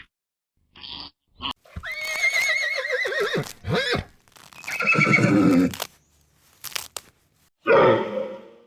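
A horse whinnying: one long quavering neigh starting about two seconds in, with shorter, rougher animal sounds before and after it.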